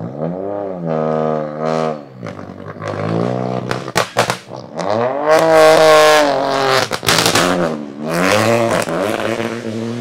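Rally car engine revving hard through a corner, its pitch repeatedly climbing and dropping with throttle and gear changes. A few sharp cracks stand out around four and seven seconds in.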